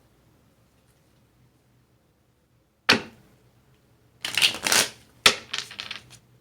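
Tarot cards being handled on a table: a sharp slap about three seconds in, then about two seconds of rapid shuffling and snapping of the deck, and another slap at the end.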